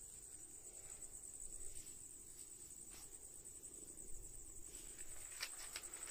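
Crickets chirring: a faint, steady, high-pitched trill, with a few soft clicks or rustles near the end.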